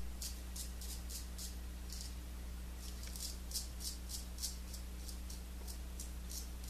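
Gold Monkey 777 straight razor scraping through lathered stubble on the chin in short quick strokes, about three a second, each a crisp rasp. A steady low hum runs underneath.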